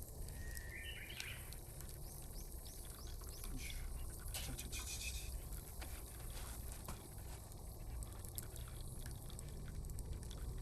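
Hot water being poured slowly over freshly ground coffee in a pour-over dripper, trickling and dripping as the grounds are wetted.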